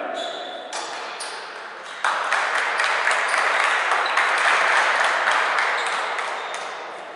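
Applause echoing in a large sports hall. It starts suddenly about two seconds in, holds steady, and fades near the end, after a brief ringing tone at the start.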